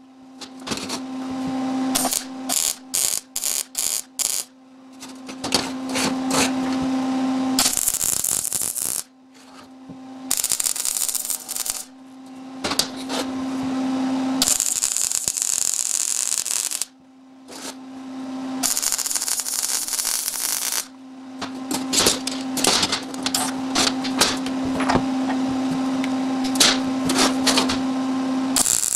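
Wire-feed MIG welder laying a series of spot and tack welds on steel angle iron: crackling, sizzling arc bursts with a low steady hum under each. About eight welds last from one to several seconds, with a run of short quick tacks about two to four seconds in.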